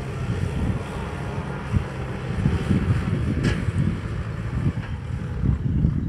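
Kubota M6040SU tractor's diesel engine running steadily while ploughing a field, heard at a distance under irregular wind buffeting on the microphone.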